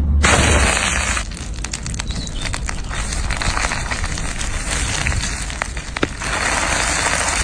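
Cooking sizzle and crackle: a dense hiss scattered with many small pops. It is loudest for about the first second and again near the end.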